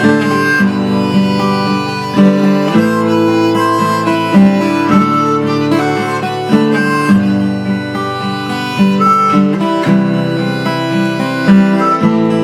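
Instrumental break of a folk song: harmonica playing the melody over strummed acoustic guitar.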